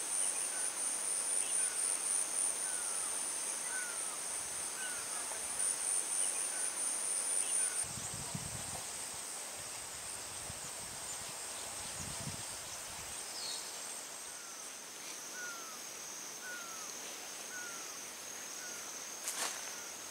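Steady high-pitched insect chorus, louder for the first eight seconds and then softer, with a short falling chirp repeated about once a second through much of it. A few rustles near the end.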